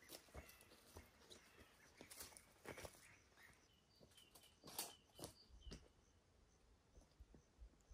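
Faint footsteps on dry grass and stones, a few separate scuffs and crunches. From about halfway a small bird chirps in a quick repeated series of short high notes.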